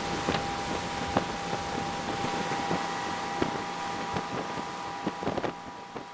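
Motorboat running at speed while towing water skiers: a steady rush of engine and wake noise with wind buffeting the microphone in short knocks, fading down near the end.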